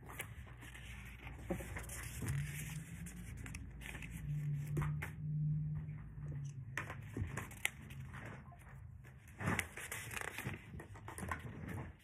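Plastic Hot Wheels track pieces rattling and clicking as they are handled and fitted together, a busy run of light clatters. A low steady hum comes in twice, about two seconds in and again for a couple of seconds from about four seconds in.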